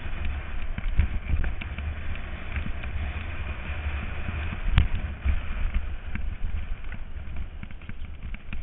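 Mountain bike riding fast down a rough dirt singletrack: wind buffeting the bike-mounted camera's microphone, tyres crunching over dirt and stones, and the bike rattling with scattered sharp knocks, the loudest about halfway through.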